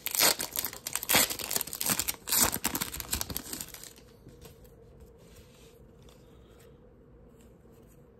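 Foil wrapper of a Bowman Platinum baseball card pack crinkling and tearing as it is ripped open by hand. It stops about four seconds in, leaving only faint rustles as the cards are handled.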